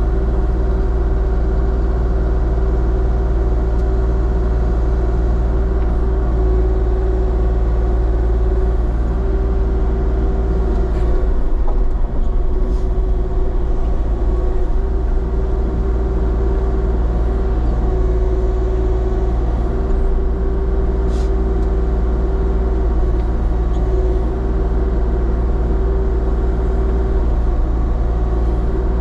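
Diesel engine of a compact construction machine running steadily, with a constant pitched hum over the low engine drone and a few faint knocks about halfway through.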